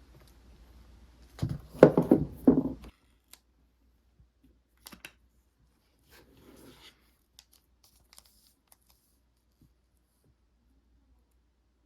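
Packaging being handled while unboxing a tablet: a loud tearing rustle about a second and a half in, then scattered small clicks and a brief softer rustle.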